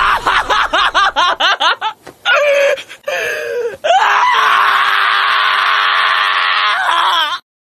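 Black-and-tan Shiba Inu screaming in protest while held down on a vet's exam table: a fast run of short high yelps, two longer wails, then one long held scream that cuts off near the end.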